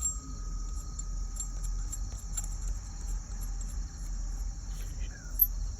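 Crickets chirping steadily in a high, even trill, over a faint low rumble.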